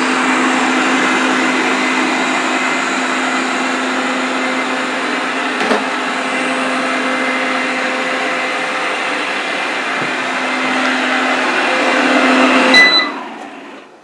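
Eufy RoboVac 30C robot vacuum running with a steady motor hum, its newly replaced suction fan working normally. Near the end it gives a click and a short beep, and the sound dies away as it stops.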